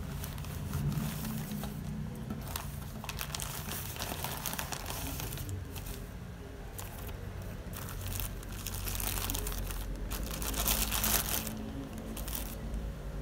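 Packaging being handled and opened, crinkling and rustling in irregular bursts, busiest about a third of the way in and again past the middle.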